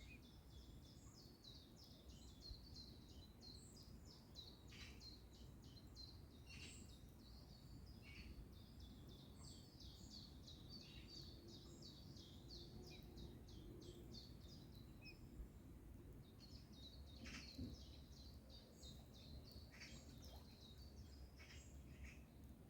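Faint birdsong: a long run of quick, high repeated notes that pauses briefly about two-thirds through, over a steady low background rumble.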